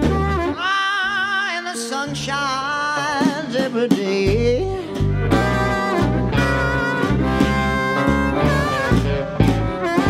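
Live slow-blues band music: a lead guitar plays held, bent notes with wide vibrato over stepping bass notes and percussion.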